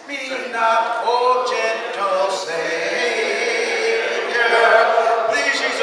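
A church congregation singing a hymn together in unaccompanied voices, with men's voices prominent.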